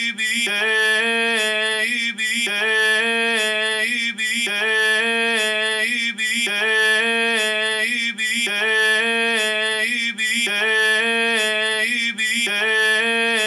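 A short recorded phrase of a singing voice playing back on a loop, about every two seconds, with a brief gap before each repeat. It is heard through a compressor whose settings are being adjusted.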